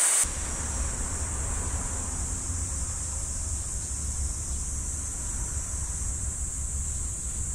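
A loud steam hiss from the locomotive cuts off sharply just after the start. Wind then rumbles steadily on the microphone, with a fainter steady high hiss behind it.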